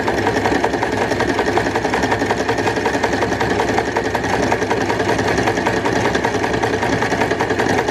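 Mechanical sewing machine running steadily with an even, rapid stitching rhythm, sewing a close zigzag up the side of a buttonhole under a buttonhole foot.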